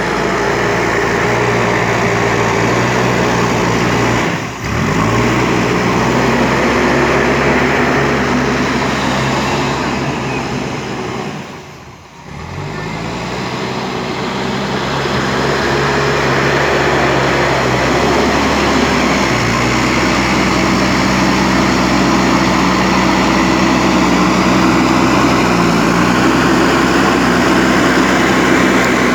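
JCB 3DX Super backhoe loader's diesel engine running steadily while the machine works, its engine note shifting in pitch a few times. The sound drops briefly about four seconds in and again near the middle.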